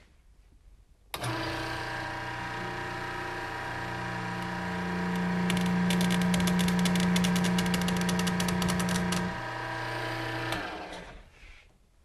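Hydraulic pump motor of a baler-belt tear-testing machine starting abruptly about a second in and running with a steady hum, growing louder midway as the hydraulic cylinder pulls a section of round-baler belt apart. A rapid crackle runs through the middle stretch as the belt gives under load, and the machine shuts off near the end.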